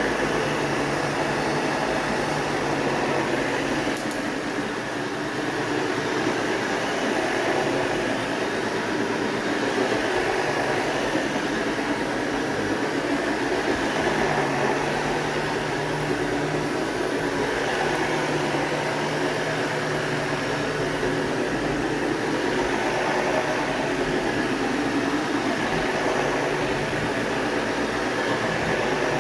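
Sebo 360 vacuum cleaner running steadily while vacuuming carpet.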